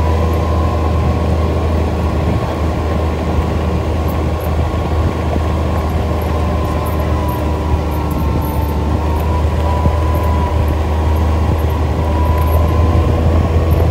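ATV engine running steadily while riding a dirt track: a loud low drone with a faint wavering whine above it.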